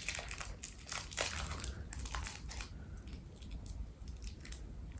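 Candy wrapper crinkling in short, irregular crackles as fingers pick at it, struggling to open it.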